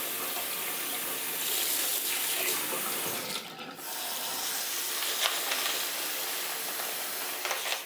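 Kitchen tap running, its stream pouring into a plastic bowl of soapy water that foams up, with a short dip about three and a half seconds in.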